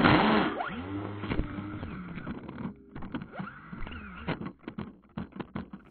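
Onboard audio of a 4-inch FPV quadcopter crashing into grass: a loud impact right at the start, with the motors' whine gliding up and down as it tumbles, then scattered clicks and rustles as it comes to rest.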